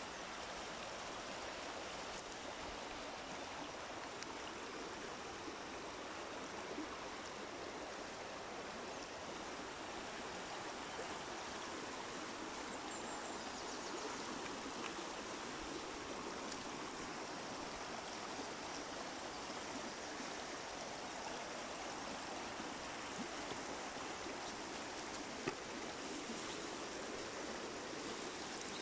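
Fast-flowing river rushing and gurgling over rocks in a steady, even wash of water noise, with one brief click near the end.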